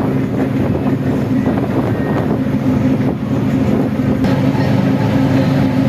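Engine of a river excursion boat running steadily underway, a low even drone with a haze of wind and water noise over it.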